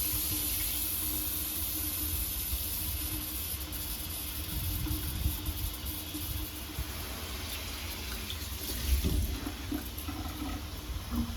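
Water spraying steadily from a newly installed detachable handheld shower head, a hiss of spray that slowly eases, with a few light knocks in the second half.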